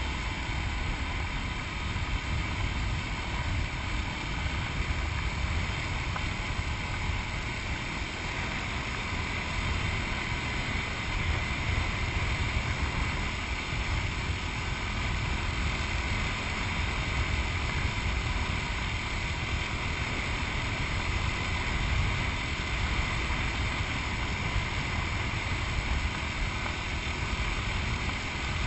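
Yamaha WR250X's single-cylinder four-stroke engine running steadily as the motorcycle rides along, with wind rushing over the microphone.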